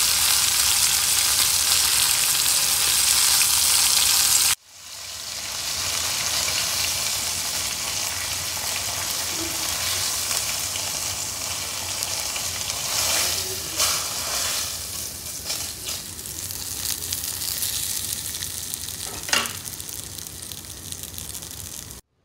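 Almond-flour-coated chicken pieces sizzling in hot oil in a cast-iron skillet, a steady frying hiss. About four seconds in it cuts abruptly to a quieter sizzle, with a few sharp clicks of metal tongs on the pan as the pieces are lifted out.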